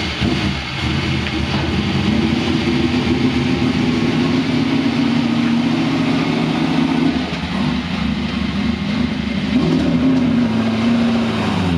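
V8 Supercar racing engine running at a steady idle, its pitch wavering with small rises and dips.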